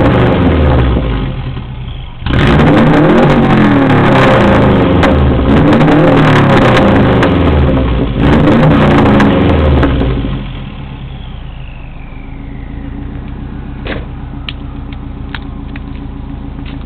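Subaru Legacy 2.0 GT's turbocharged flat-four revved repeatedly through a straight-piped exhaust with the muffler removed, the pitch climbing and dropping several times, then settling to a steady idle about ten seconds in, with a faint falling whine as it settles.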